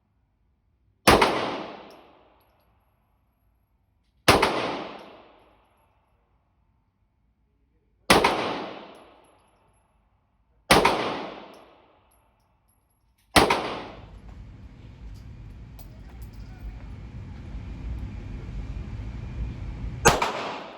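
Six single handgun shots, the first five a few seconds apart and a longer pause before the last, each with a short echoing tail. A low rumbling noise fills the pause before the last shot.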